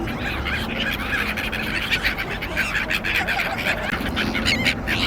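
A flock of waterbirds calling at once, a dense overlapping chatter of honking and squawking calls.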